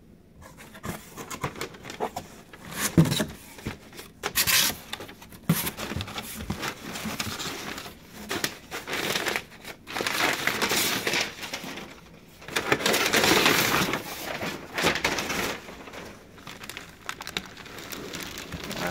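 Brown kraft packing paper crumpling and rustling in irregular bursts as it is pulled and pushed about inside a cardboard shipping box, with the box's cardboard flaps being handled. Some of the louder bursts come a few seconds in and again in the second half.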